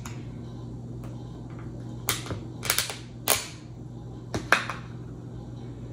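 Sharp plastic clicks and pops as the snap-on lid of a small plastic takeout sauce cup is pried off, about six clicks bunched together from about two seconds in, over a steady low hum.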